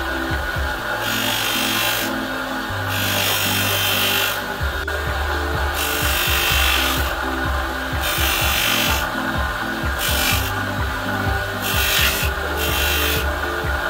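Bench grinder with a cloth buffing wheel running with a steady hum, while a small cast silver pendant is pressed against the buff in repeated passes. Each pass adds a rasping hiss lasting about a second, as the piece is polished with buffing compound.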